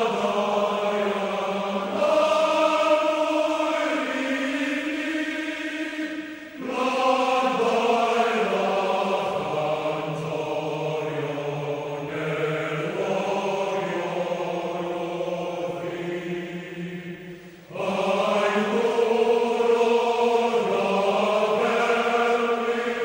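Chanted singing in long held notes, choir-like, with brief drops about six and a half and seventeen and a half seconds in.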